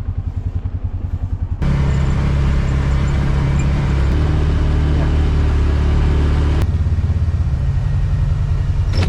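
A vehicle engine idling with an even low pulse; about one and a half seconds in it gives way abruptly to a louder, steady engine running.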